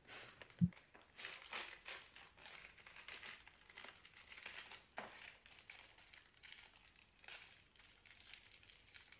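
Faint crinkling of a small clear plastic bag of small metal hardware being handled and opened, with a few light clicks from the parts inside.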